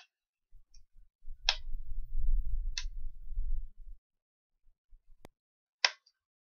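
Sharp clicks, four of them about a second or more apart, from a thin metal pry tool working under a flex cable and shield inside an opened iPad Pro, with a low handling rumble in the middle.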